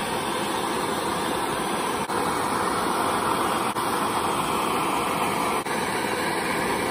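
Hand-held gas burner running with a steady, even roar of flame, heating soaped 5005 aluminium sheet to anneal it.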